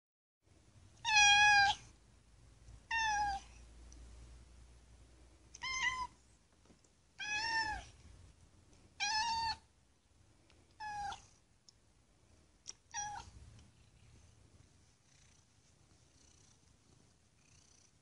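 A cat meowing seven times, short high calls spaced a second or two apart, the first the loudest; after about fourteen seconds only faint low sound remains.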